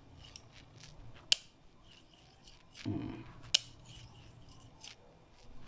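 A steel screwdriver shaft stroked repeatedly along a flat magnet to magnetize it. It makes light metallic scraping, with a sharp metallic click about every two seconds.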